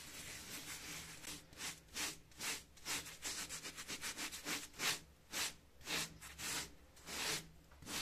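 A foam sponge rubbing back and forth over a rough earth-lime-fibre (calfitice) render in a run of short scrubbing strokes, quicker in the middle, working a watery slurry of the same render into a hairline crack to repair it.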